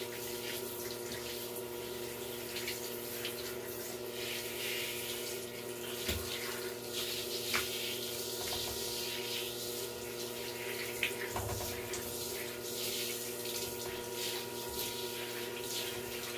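Water running steadily as shampoo is rinsed out of a small dog's coat, over a constant hum, with a few faint knocks.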